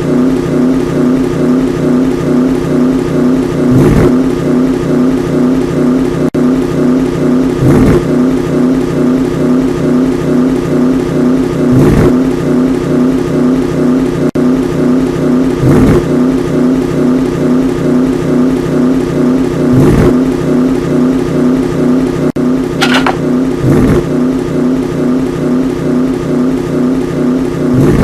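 Car engine running steadily. It swells briefly about every four seconds, like a repeating loop. A short rising tone comes near the end.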